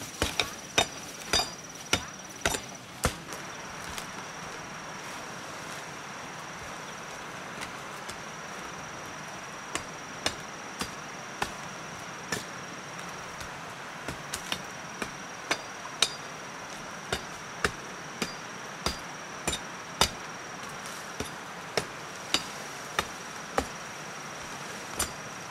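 Machete blade striking and chopping palm-leaf stalks: sharp strikes, a quick run in the first three seconds, a pause of several seconds, then steady strikes about every half second from about ten seconds in. A high, steady insect buzz carries on underneath.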